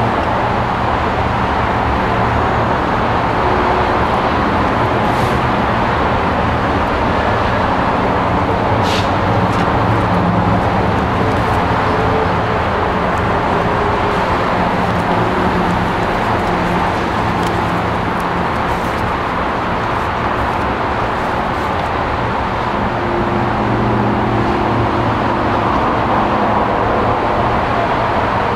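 Steady roar of road traffic, an unbroken wash of passing vehicles.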